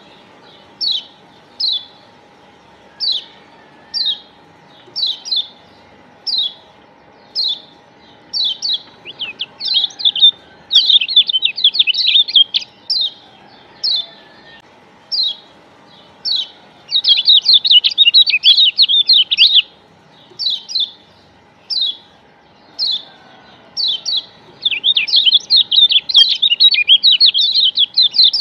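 Kecial kuning, the Lombok yellow white-eye (Zosterops), calling: single high chirps about once a second, broken three times by fast chattering runs lasting a few seconds each.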